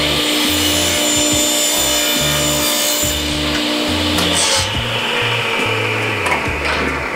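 Table saw blade cutting through a stack of plywood at a slight bevel. The cutting noise eases about three seconds in, and the saw then runs on with a slowly falling pitch. Background music with a steady beat plays underneath.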